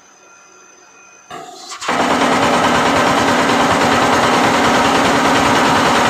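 Pneumatic jolt squeeze moulding machine jolting under test: its table is driven up and dropped again and again, making a loud, rapid, steady rattle of knocks that starts about two seconds in.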